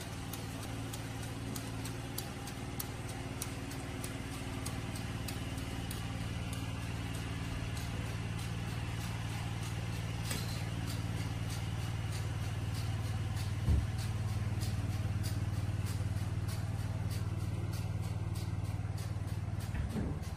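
Engine of a small farm tractor running steadily while it works a flooded field, with a regular ticking about three times a second, growing a little louder as the machine comes nearer. A single thump about two-thirds of the way through.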